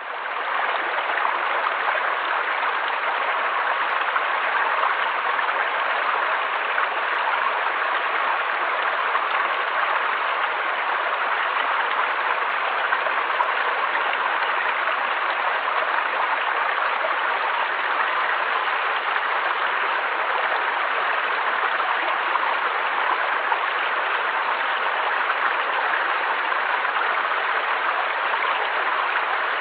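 Steady rushing of a flowing stream, fading in at the very start and then holding an even, unbroken wash of water noise.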